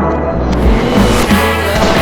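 Background rock music. The full band, with drums and cymbals, comes in about half a second in.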